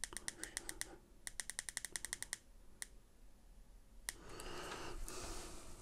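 Quick clicking of the small adjustment buttons on an Aspire Rhea X vape mod under a thumb: two fast runs of clicks, about ten a second, then two single clicks. Near the end comes a soft rushing hiss.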